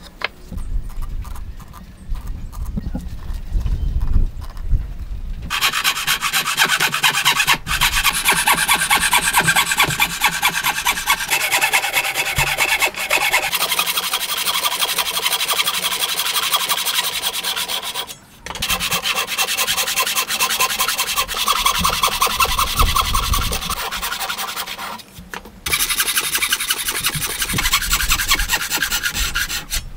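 Thin-bladed wooden frame saw cutting across a wooden block by hand: steady rasping saw strokes that start a few seconds in and stop briefly three times.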